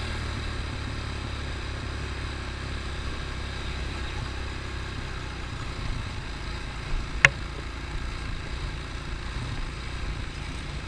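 ATV engine running steadily with a low drone, with one sharp click about seven seconds in.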